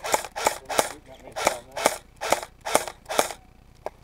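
Airsoft rifle firing a string of single shots, about eight sharp cracks at two to three a second, with a short pause about a second in, ending shortly before the end.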